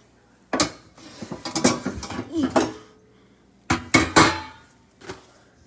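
Irregular knocks and clatters of hard objects being handled, a few close together in the middle and the two loudest about four seconds in.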